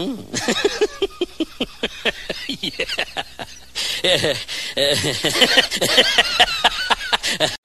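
A dog vocalizing in a rapid run of short yips and whines, each falling in pitch. They grow louder and higher and waver from about four seconds in.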